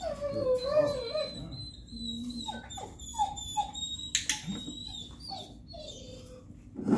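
A dog whimpering and whining: a wavering whine in the first second, then several short falling whimpers around the middle, with a single sharp click a little past halfway.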